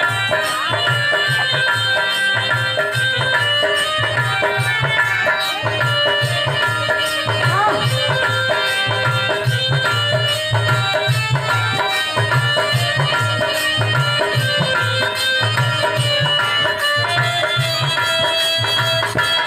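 Instrumental Indian folk music: a hand drum keeps a steady beat under a melody of held notes.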